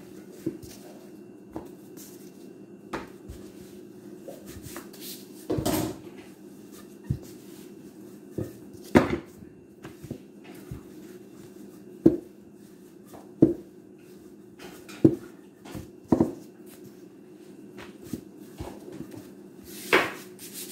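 Wooden rolling pin rolling out dough on a stone countertop, knocking against the counter every second or two, over a steady low hum.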